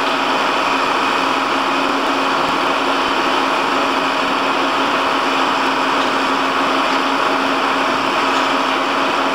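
Engine running steadily, a constant mechanical drone with an unbroken low hum.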